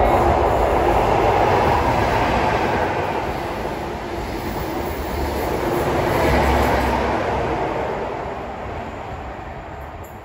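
A GWR Castle-class HST, with Class 43 diesel power cars and Mk3 coaches, passing through the station at speed: a loud rumble of engine and wheels on the rails. It swells again about six seconds in, then fades away.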